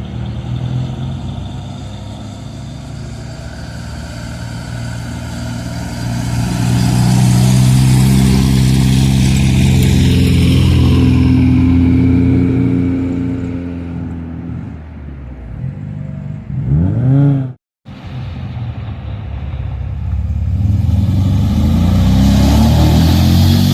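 Classic car engines running through the exhaust: one car's engine note swells, holds loud, then fades, rises in a brief sharp rev and cuts off abruptly about 17 seconds in. A second engine then starts up loud and revs, its pitch climbing and dropping toward the end.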